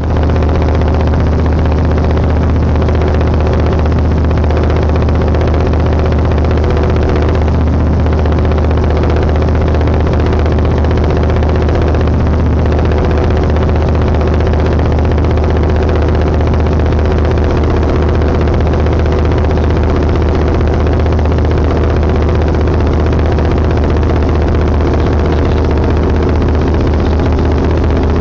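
Boat engine running steadily, heard on board: a constant low drone with a steady hiss over it.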